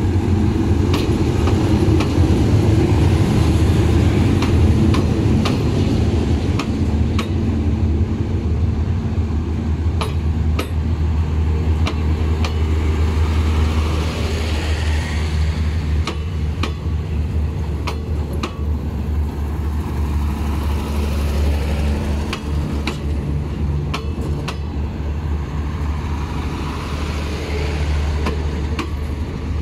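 Diesel train engine running with a steady low drone, with scattered sharp metallic clicks and knocks over it.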